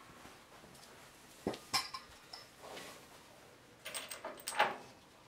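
Metal clinks and knocks of hand tools and shock-absorber mounting hardware being handled. Two sharp clinks come about a second and a half in, and a louder cluster of clinks with a brief ring comes near the end.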